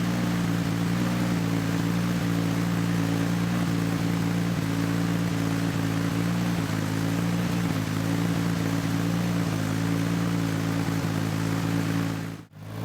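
Lexus SC300's straight-six engine idling steadily during a cold-start warm-up. The sound cuts out briefly near the end.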